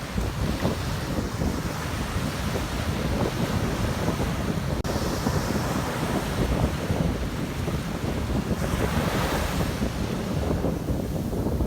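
Sea waves breaking and washing in, under strong wind buffeting the microphone with a heavy low rumble. A wave washes in louder about nine seconds in.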